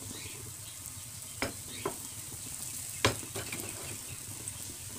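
Potato patties (aloo tikki) frying with a steady sizzle in oil on a non-stick tawa griddle. There are three light taps about one and a half, two and three seconds in as more patties are set down on the pan.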